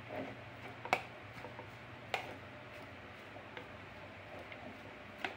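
Spoon clicking and scraping against a plastic bowl as chopped onion, tomato and cabbage are stirred with salt: two sharper clicks about one and two seconds in, then lighter taps.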